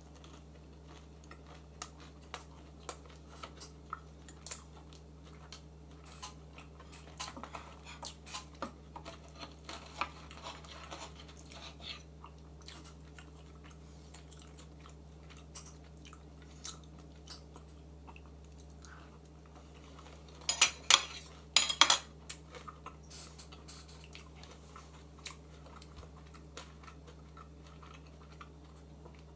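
Close-up eating sounds: chewing crisp pearl-sugar Liège waffle, with a metal spoon and fork clinking and scraping on a plate. A louder run of clinks comes about two-thirds of the way through, with a faint steady low hum underneath.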